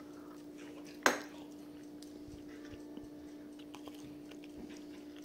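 Cutlery on a dinner plate while eating: one sharp clink about a second in, then faint chewing and small scattered clicks over a steady low hum.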